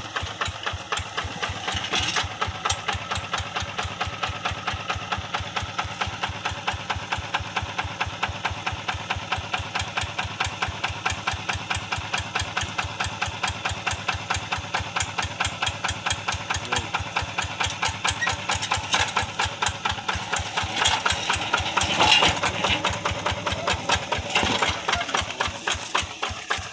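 Single-cylinder diesel engine of a two-wheel rice-paddy hand tractor running with an even, rapid chugging beat. It grows louder for a couple of seconds about 21 seconds in.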